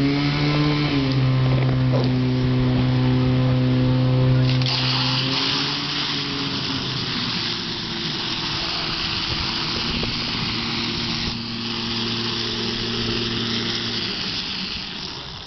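Portable fire-pump engine running hard at high revs and pushing water through the hoses. About four and a half seconds in, a loud steady hiss of two water jets spraying from the nozzles joins the engine and lasts almost to the end.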